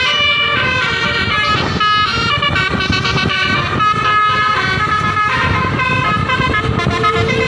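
Bus's Basuri telolet horn playing a quick melody of stepped notes over a low rumble.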